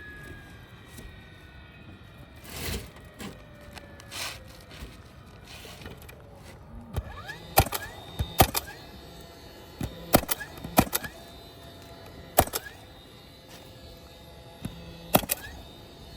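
A series of sharp knocks, several in pairs about a second apart, each followed by a brief falling ring, starting about halfway in.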